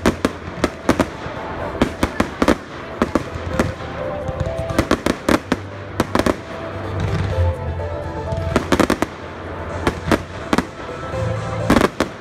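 Aerial fireworks bursting in irregular volleys of sharp bangs and crackles, with a dense flurry of loud reports near the end. Music with a steady bass line plays underneath.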